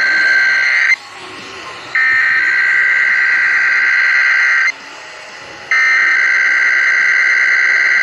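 Emergency Alert System SAME header: loud bursts of warbling two-tone digital data squawk, repeated with about a second's pause between them. A burst ends about a second in, a full burst follows, and a third starts near the end. It marks the start of a Required Weekly Test alert.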